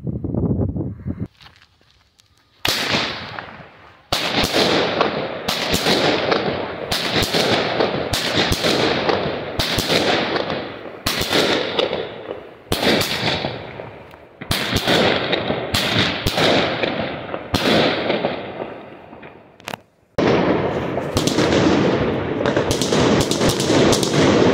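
Fireworks going off at night: a sharp bang about once a second, each trailing off into crackle. There is a short lull about two seconds in and a denser, unbroken run of crackling bursts in the last few seconds.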